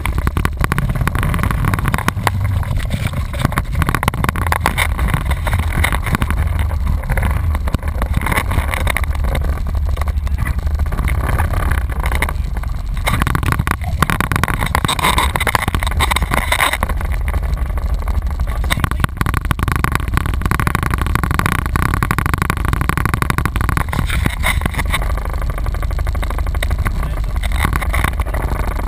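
Honda Rincon 680 ATV's single-cylinder engine running steadily as the quad rides over a rough gravel trail, a continuous low rumble. Tyres crunch on the gravel and the machine jolts on bumps, adding frequent short knocks.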